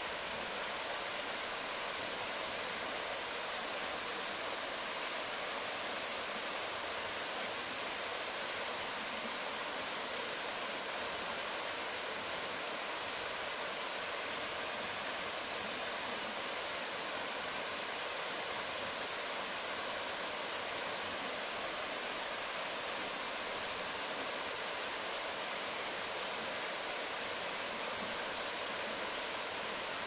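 Small waterfalls of a mountain stream pouring over boulders into a clear rock pool: a steady rushing of water that holds even, without change.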